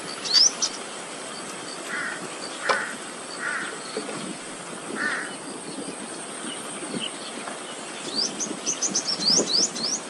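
Birds calling: a few short, harsh caw-like calls spaced about a second apart, then near the end a quick run of rising whistled notes, over a faint steady high-pitched drone.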